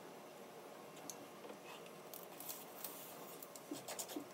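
Close-up eating sounds: snow crab legs being cracked and the meat sucked and chewed from the shell, in quiet scattered clicks and crackles that grow busier from about two seconds in.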